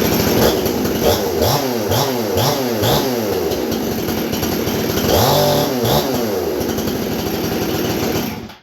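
Husqvarna 288XP two-stroke chainsaw running, blipped on the throttle about five times in quick succession a second in and once more near the middle, then shut off near the end. The chain races at idle, which the owner puts down to a worn clutch whose springs let the shoes touch the drum.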